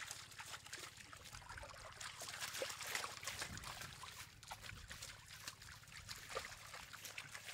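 Shallow muddy water splashing and trickling in many quick small splashes, from a mass of catfish wriggling in a trough and water being scooped out of it by hand.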